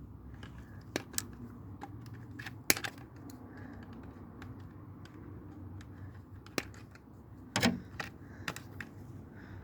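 Scattered clicks and light knocks of plastic and metal parts being handled while a tower fan is taken apart, with the loudest knock a few seconds in and another cluster near the end.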